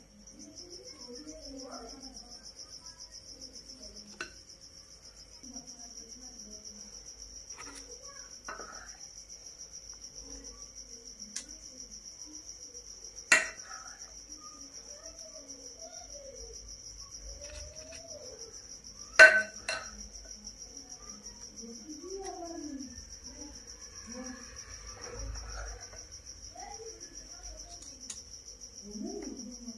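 A cricket's steady high-pitched chirping trill, with two sharp knocks, the first about halfway through and the second some six seconds later.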